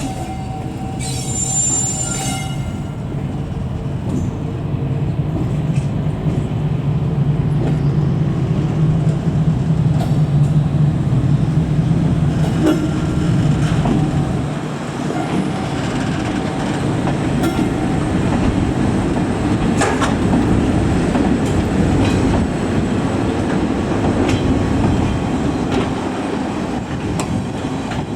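JR Class DE10 diesel locomotive, coupled with a Class EF65 electric locomotive, rolling past: a steady low diesel engine drone through the first half, then a loud rumble of wheels with repeated clicks over the rail joints. A brief high squeal sounds about two seconds in.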